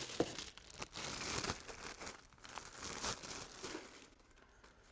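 Packaging crinkling and rustling as it is handled and pulled apart, with small clicks and knocks, dying away near the end.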